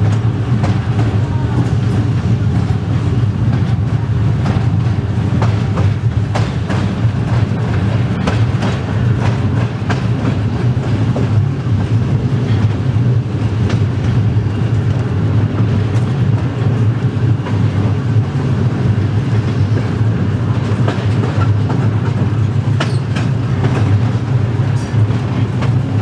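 Vintage electric streetcar running along the track, heard from inside the operator's cab: a steady low hum with irregular clicks and knocks of the wheels over the rail joints.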